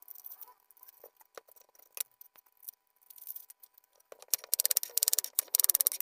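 Papery onion skin rustling faintly as an onion is peeled, then, from about four seconds in, a kitchen knife slicing through the onion onto a bamboo cutting board in a quick run of crisp cuts.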